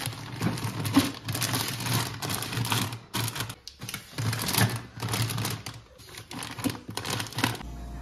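Plastic bags and packages rustling and clattering as groceries are handled and packed into a freezer, in quick irregular bursts with brief pauses. Near the end the handling stops and a steady low hum takes over.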